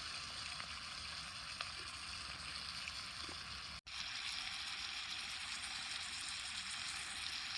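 Eggs and bacon sizzling in a frying pan, a steady hiss with an occasional faint spit, breaking off for a moment about four seconds in.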